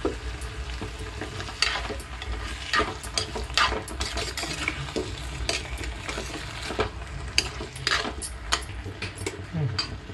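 Chicken and onions frying and sizzling in a clay pot while a steel spatula stirs them, scraping and clicking irregularly against the pot's sides.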